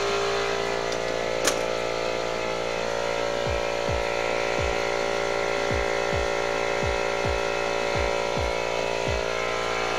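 A machine running with a steady hum made of many held tones, with a single click about a second and a half in. From about three and a half seconds in, a low falling sweep repeats roughly twice a second.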